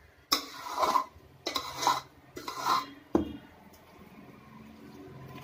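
A steel spoon stirring thick fermented rice batter in a stainless steel bowl, scraping against the metal in three strokes, with a sharp clink about three seconds in, then much quieter.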